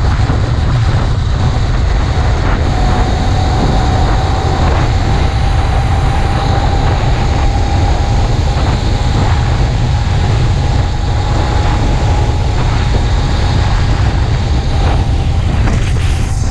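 Small four-stroke engine of a motorized bicycle running steadily at cruising speed while it is being broken in, under heavy wind rumble on the microphone. A steady whine comes in about three seconds in and holds.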